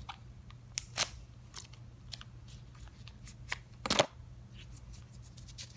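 ASMR handling sounds: fingers tapping, scratching and rubbing a small object close to the microphone, an irregular run of soft clicks and crinkly ticks, with louder taps about a second in and about four seconds in.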